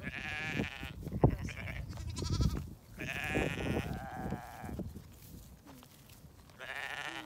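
Sheep bleating: about four quavering calls, the longest a little past the middle, with a single sharp knock about a second in.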